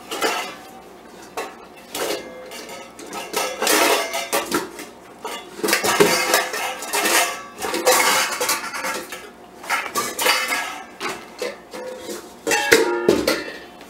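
Stainless steel pot and metal kitchen utensils clattering and clinking as they are handled, a string of irregular clanks, some ringing briefly.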